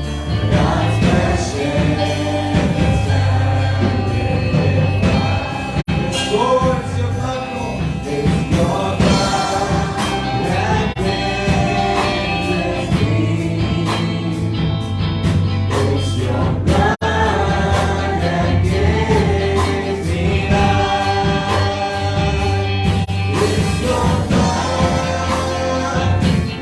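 Live worship music: a band and voices singing a gospel-style worship song together over a steady bass.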